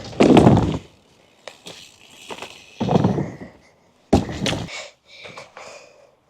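Three heavy thumps with some clatter between them, from a mountain bike on 3D-printed plastic wheels striking the ground.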